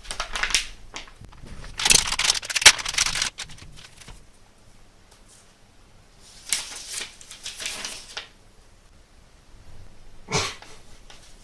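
Packaging being handled and opened by hand: several bursts of rustling and crackling with small clicks, the loudest about two to three seconds in, another around seven seconds, and a short sharp one near the end.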